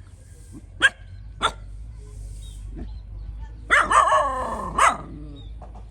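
Dog barking: two short, sharp barks about a second in, then a quick run of several barks and yelps that fall in pitch around four seconds in.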